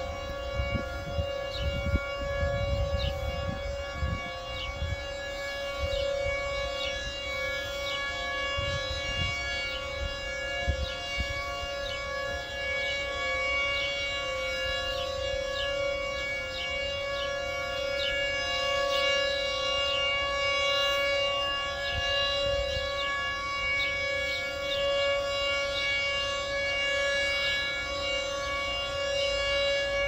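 Outdoor tornado warning siren, a Hor Siro-drone on the neighbouring rooftop, sounding a steady tone during a test, with more sirens across the area audible behind it.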